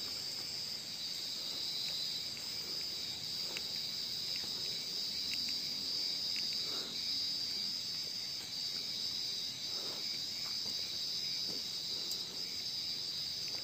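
A night-time chorus of crickets, one steady high-pitched trill that never lets up, with a few faint rustling footsteps on dry leaf litter now and then.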